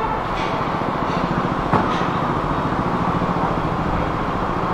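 Steady rumble of a motor vehicle running close by, with one sharp click a little under two seconds in.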